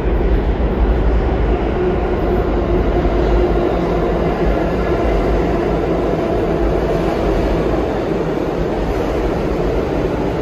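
New York City subway train running on the rails, a loud steady rumble of wheels and cars with a faint steady hum over it, easing slightly near the end.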